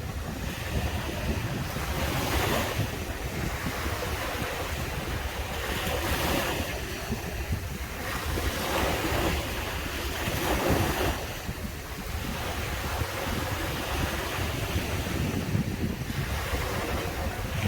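Sea waves breaking and washing up the sand in a steady series of surges a few seconds apart, with wind buffeting the microphone.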